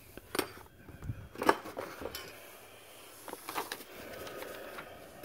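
Cardboard boxes and packaged parts being lifted and shifted inside a shipping carton: two sharp knocks, about half a second and a second and a half in, then soft rustling and small taps of packaging.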